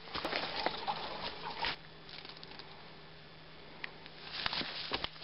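Irregular rustling and handling noises with scattered clicks, busier in the first second and a half and again near the end.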